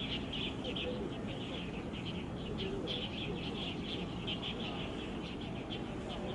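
Small birds chirping rapidly and continuously, short high chirps several a second, over a steady low background rumble.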